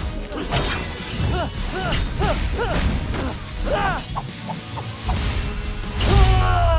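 Animated fight-scene soundtrack: background music with cartoon impact, crash and whoosh effects. Near the end it swells into a long falling tone over a deep rumble.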